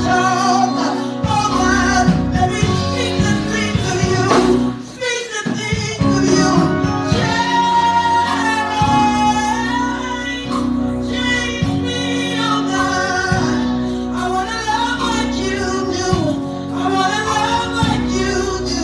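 Gospel song with a woman singing lead over a band, with steady bass and a beat; the music drops out briefly about five seconds in.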